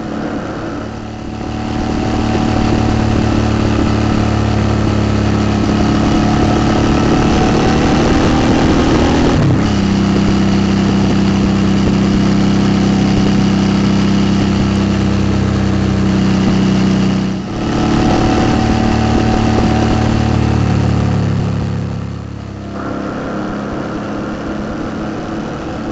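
2008 Suzuki V-Strom 650's 90° V-twin engine, through a Delkevic aftermarket exhaust, pulling steadily under way. The engine note breaks briefly about ten and eighteen seconds in as gears are changed, and the bike eases off and goes quieter near the end.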